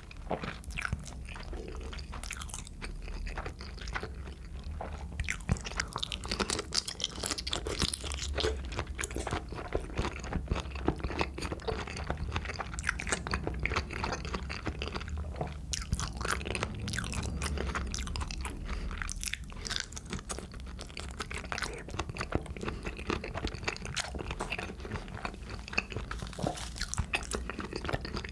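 Close-miked chewing and biting of soy-sauce-marinated raw shrimp (ganjang saeu-jang), with many small clicks and crackles of the mouth and food.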